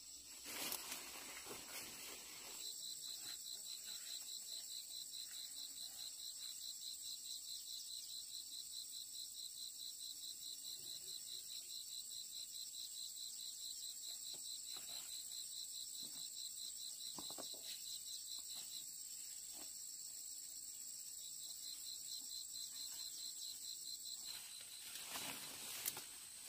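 An insect calling in a fast, evenly pulsed high trill. It starts about three seconds in, pauses briefly past the middle and stops shortly before the end. Faint knocks and rustles lie underneath.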